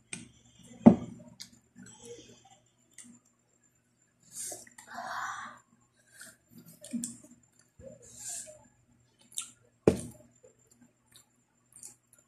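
Mukbang eating sounds from spicy noodles and fried chicken: chewing, small clicks of chopsticks and short slurping, hissing sounds. Two sharp knocks of tableware come about a second in and again near ten seconds.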